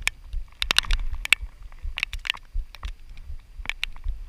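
Raindrops tapping on the camera in irregular, sharp clicks, over a low rumble of wind on the microphone.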